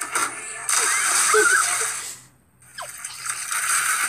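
Water splashing as a man jumps into an above-ground backyard pool, with voices briefly audible over the noise. The splashing noise breaks off about two seconds in, and more splashy noise follows after a short pause.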